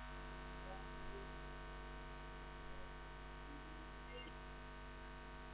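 Faint, steady electrical mains hum with many evenly spaced overtones, the background hum of the recording setup.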